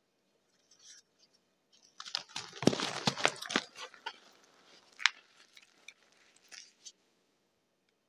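Blocks of gym chalk crushed and crumbled by hand into loose chalk powder. A dense run of crunching and cracking starts about two seconds in, followed by a single sharp crack and a few smaller crunches that die away before the end.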